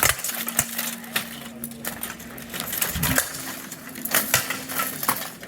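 Repeated sharp metallic clanks and clashes of blunted steel weapons striking armour and shields, coming irregularly.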